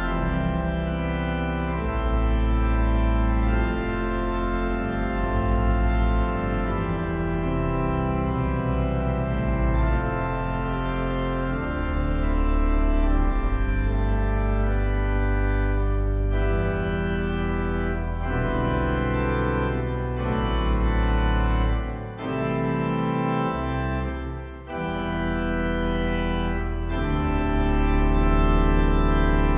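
Organ music played on a two-manual console organ and heard through large monitor speakers: sustained chords over deep bass pedal notes, changing every second or two, with two brief drops in loudness about three-quarters of the way through.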